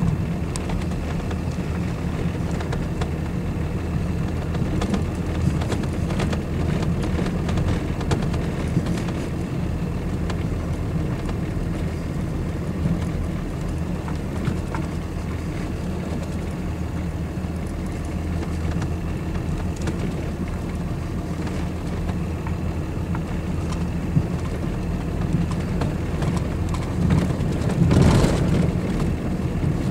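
Truck engine running steadily at low speed, a low hum heard from inside the cab, with the tyres rolling over packed snow and small scattered clicks. A brief louder rush of noise comes about two seconds before the end.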